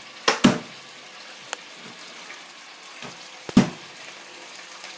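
Cooking sounds: a utensil knocking sharply against a pot, two knocks early and two close together about three and a half seconds in, over a steady low frying hiss.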